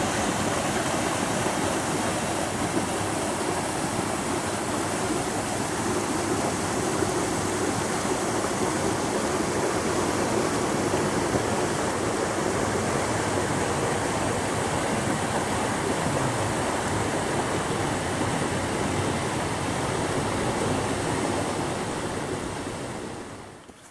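Creek water rushing and splashing over a small cascade between boulders, a steady rush that fades out near the end.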